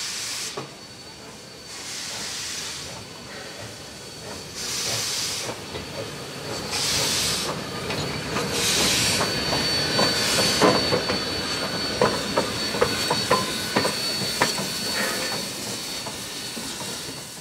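Steam locomotive 3265, a C32-class 4-6-0, moving slowly past, its exhaust hissing in surges about every two seconds. About ten seconds in, a run of sharp clicks from the wheels over the rail joints takes over as the driving wheels go by, with a thin steady high whine above.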